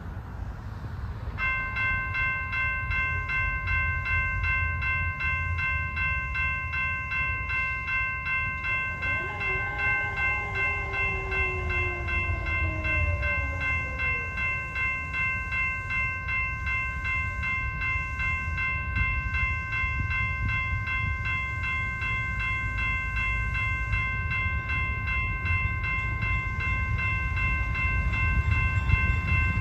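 Railroad grade-crossing warning bell ringing steadily, starting about a second and a half in, over the low rumble of an approaching diesel freight train that grows louder near the end.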